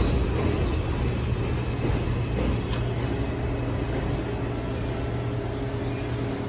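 Steady low rumble of street traffic, with a constant low hum underneath.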